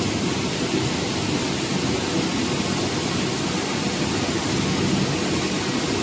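Industrial air-bubble sweet corn washing machine running: a steady, even rushing noise from its blower fans and water.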